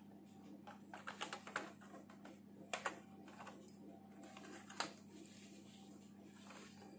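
Plastic snap clips of a Toshiba Satellite C55D laptop's bottom case clicking loose as the case is pried open: a quick run of light clicks about a second in, two sharper snaps near three seconds and one more near five.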